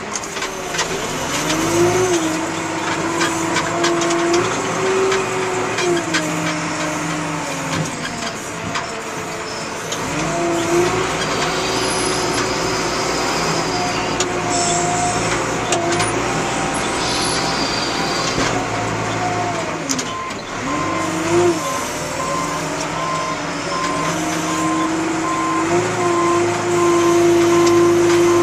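John Deere 310E backhoe loader's diesel engine working, its revs climbing and dropping back again and again as the machine takes load. From about two-thirds of the way through, a backup alarm beeps steadily.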